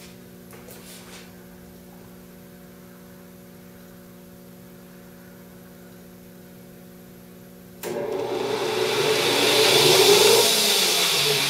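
A steady low hum, then about eight seconds in the Grizzly G0602 lathe's spindle switches on and runs up: a sudden, loud whir of the motor, drive and spinning three-jaw chuck that swells over the next couple of seconds.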